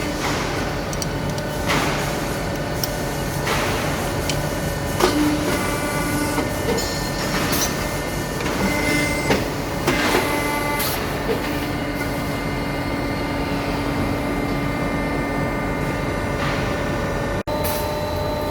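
CNC tube bending machine running through its cycle: a steady motor hum with held tones, broken every second or two by short hisses and knocks.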